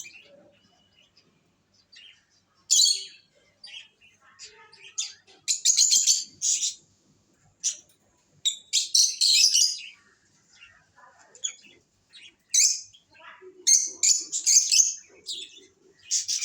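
Pet lovebirds chirping: short, high-pitched calls in irregular bouts, some loud clusters lasting about a second.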